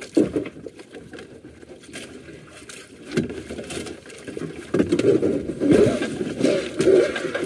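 Water washing around a small outrigger fishing boat at sea, with a few scattered knocks, growing louder and more uneven in the second half.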